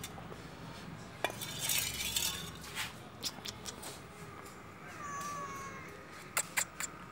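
A small metal bowl of milk clinks and scrapes on concrete steps as it is set down, with several sharp clicks. A cat meows once, about five seconds in.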